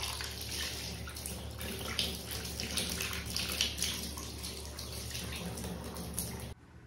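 Handheld shower spray pouring onto a wet raccoon's fur and splashing into a bathtub as it is rinsed off, a steady rush of water that stops abruptly near the end.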